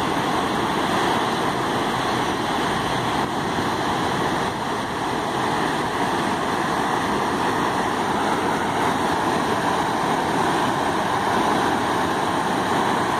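Muddy floodwater from a swollen river rushing across a flooded road and churning against a chain-link fence: a steady, loud rush of water.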